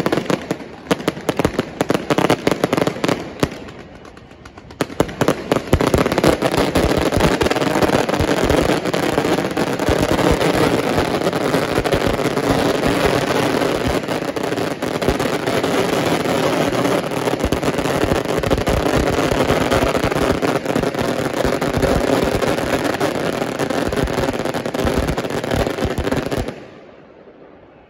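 Aerial fireworks going off. A rapid run of bangs comes first, then a brief lull, then a dense, continuous crackle of sharp bangs and pops for about twenty seconds, which stops abruptly just before the end.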